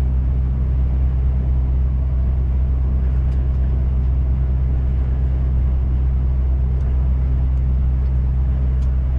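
Steady low drone of a lorry's engine and road noise heard from inside the cab while driving, unchanging throughout.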